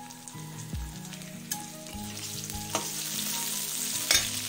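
Diced potatoes sizzling in hot oil in a metal kadhai, stirred with a flat metal spatula that scrapes and clacks against the pan. The sharpest clack comes about four seconds in.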